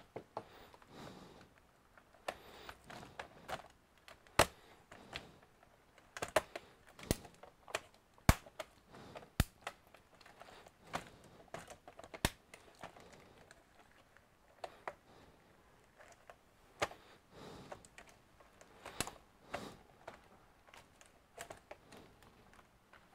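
Irregular plastic clicks and light knocks from gloved hands working at the plastic bottom case of an ASUS X456UJ laptop, with a few sharper clicks among them.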